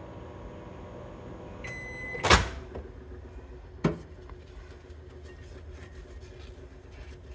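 Microwave oven humming as it runs, then a single beep lasting about half a second, followed right away by a loud clunk of the door popping open. A smaller knock comes about a second and a half later.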